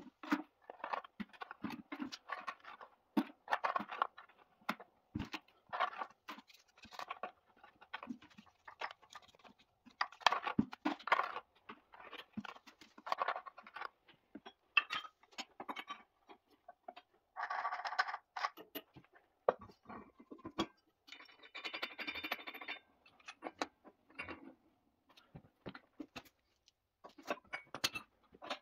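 A hand brush scrubbing over the rusty flywheel housing of a Simar two-stroke engine in short, irregular scratchy strokes, with brief pauses between them.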